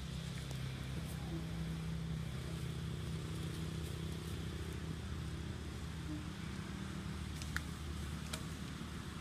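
A steady low engine hum running in the background, with a faint insect-like buzz above it and two sharp clicks near the end.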